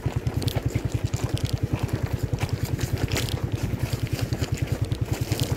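Small motorcycle engine running at low speed, an even low pulse of about ten beats a second, with the crackle of tyres on loose gravel over it.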